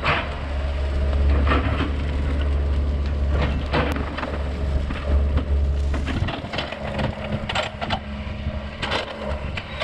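Burning brush pile of green, damp wood crackling, with sharp pops and cracks scattered throughout. A steady low rumble runs underneath and eases about six seconds in.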